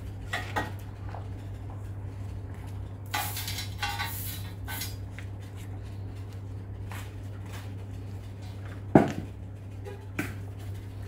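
Scattered clinks and knocks of objects being handled over a steady low hum, with one sharp, loud knock about nine seconds in.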